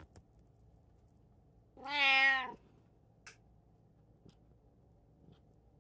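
A domestic cat meowing once: a single drawn-out meow of nearly a second, about two seconds in, with a few faint ticks around it.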